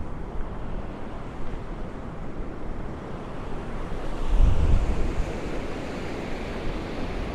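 Strong storm wind buffeting the microphone: a steady rushing, with a heavier low gust about four and a half seconds in.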